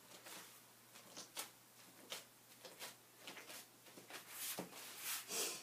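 Hands softly pressing and patting soapy, wet wool roving, faint irregular pats. Near the end a louder hiss comes in.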